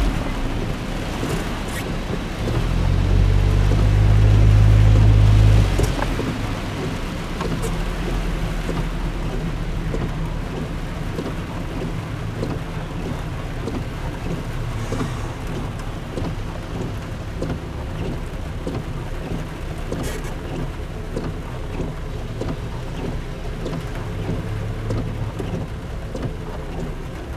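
Rain hitting a car's windshield, heard from inside the cabin over the low rumble of the car on a wet road. The rumble swells loud for a few seconds near the start, then settles to a steady level.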